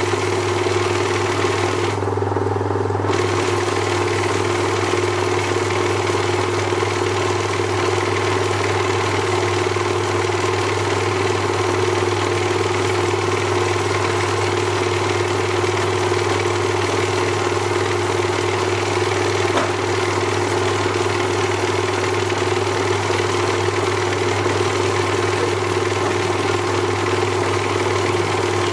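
Small pen-turning lathe's motor running with a steady hum while an ebonite pen part is hand-turned on it.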